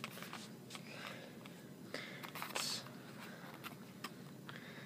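Clear plastic blister pack of a fishing lure being handled, giving scattered light clicks and a brief crinkle about two and a half seconds in.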